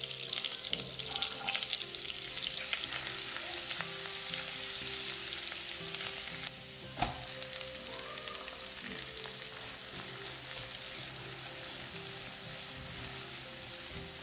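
Minced garlic sizzling and frying in hot melted butter in a non-stick pan, a steady crackling hiss. About seven seconds in there is one sharp knock as chopped onion goes into the pan, and the sizzle runs on as the onion is stirred. Soft background music plays underneath.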